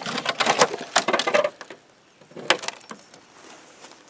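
Dry leaves and twigs crackling and snapping, dense for about a second and a half, then a single sharp snap about two and a half seconds in, with only a few faint ticks after.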